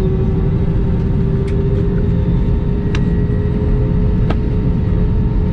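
Steady cabin rumble of an Airbus A321 taxiing after landing, with an even hum running through it. Three faint clicks come about a second and a half apart, the last one about four seconds in.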